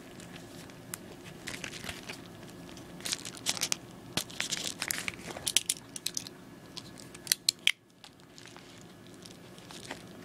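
A padded paper mailer envelope crinkled and torn open by hand: irregular rustling and crackling with clusters of sharp clicks.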